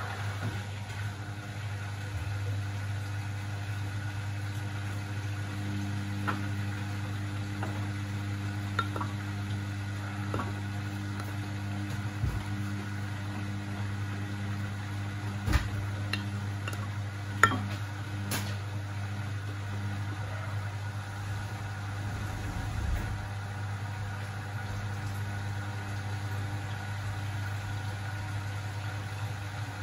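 Beko WMB71642W washing machine running mid-cycle: a steady low hum under a swishing wash noise, with a few sharp clicks and knocks around the middle.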